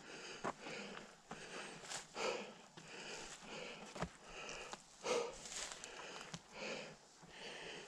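A hiker's heavy breathing, in and out about once a second, with a few soft knocks in between.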